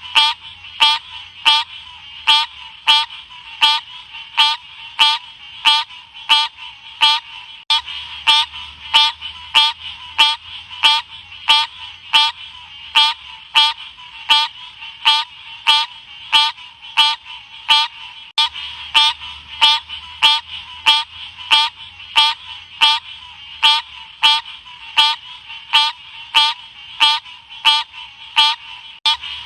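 Odorrana livida frog calling, a short sharp note repeated at an even pace of about one and a half calls a second.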